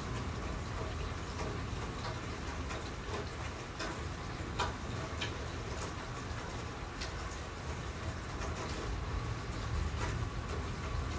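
Steady rain falling, with scattered sharp ticks of drops striking a nearby hard surface and a louder drip about four and a half seconds in.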